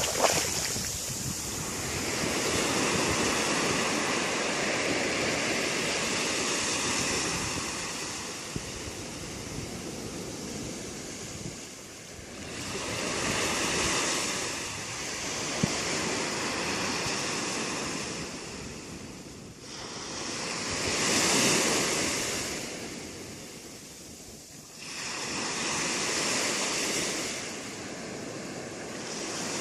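Sea waves breaking and washing up the shore, the surf swelling and fading in long surges every few seconds.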